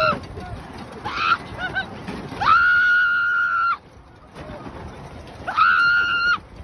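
Roller coaster riders screaming: a short scream about a second in, then two long, high held screams over the steady noise of the moving train.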